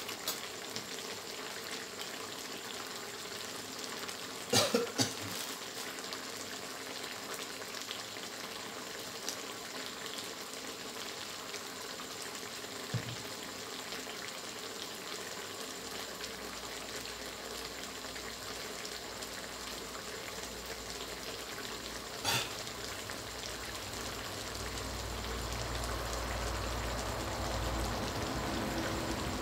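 Spicy catfish and Thai eggplant stir-fry simmering in a steel wok over a gas burner: a steady sizzling, bubbling hiss. A sharp knock about four and a half seconds in and another around twenty-two seconds, and a low rumble that rises near the end.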